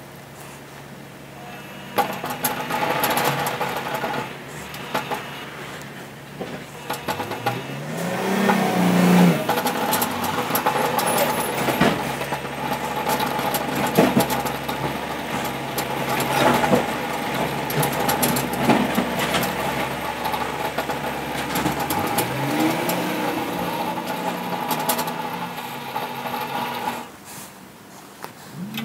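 Powered bead roller's motor running as steel exhaust tubing is fed through its rollers, speeding up with a rising whine more than once, with clicks from the metal working between the rollers.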